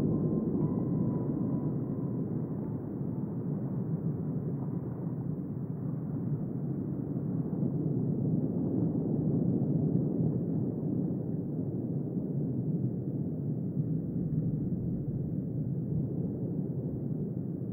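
Low, steady underwater rumble: an even wash of deep noise with no clicks or other distinct sounds, swelling slightly towards the middle and easing off near the end.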